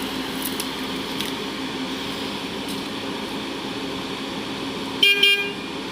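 Heavy machine engine running steadily, with two short horn beeps close together near the end.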